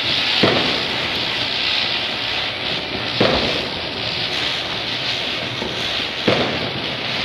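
Several ground spinners (chakri firecrackers) whirling with a steady hiss, broken by three sharp bangs about three seconds apart.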